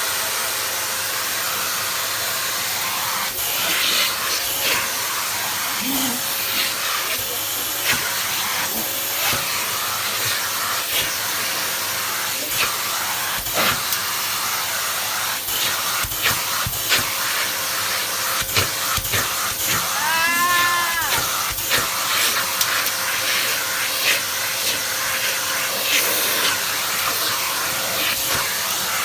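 Vacuum cleaner running steadily, with scattered light knocks from the nozzle and a brief wavering high call about twenty seconds in.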